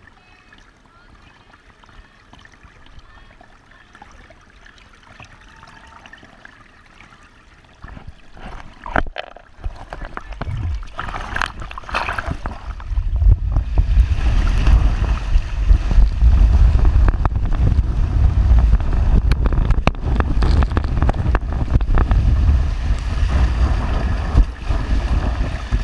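A rider on a mat water slide sets off after a quiet start. From about halfway through there is a loud, continuous rushing of water and wind buffeting the microphone while sliding down at speed.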